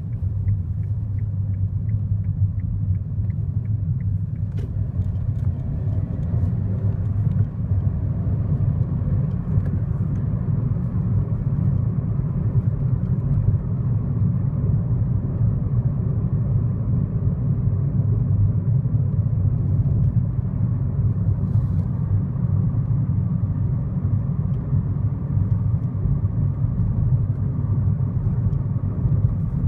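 Steady low rumble of a 2015 Kia Rio's engine and road noise heard from inside the cabin while driving. A quick, regular light ticking runs in the first few seconds and stops about four seconds in, and a few faint scattered clicks come through later.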